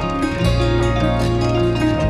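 Instrumental background music: plucked-string notes over held low bass notes, with the bass changing about half a second in.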